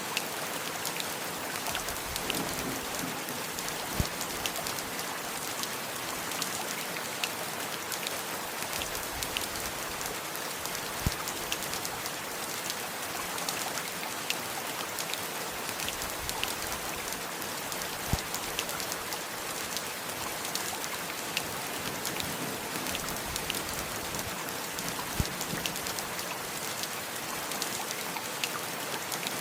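Steady rain, a continuous hiss of falling rain with scattered individual drips and drops landing close by, a few louder ones standing out now and then.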